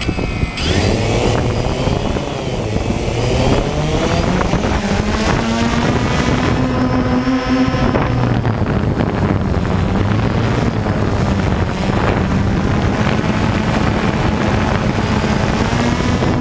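Quadcopter drone's electric motors and propellers spinning up for takeoff about half a second in, the pitch rising over the next few seconds. After that a loud, steady propeller buzz whose pitch wavers slightly as the drone climbs, heard close up from a camera mounted on the drone itself.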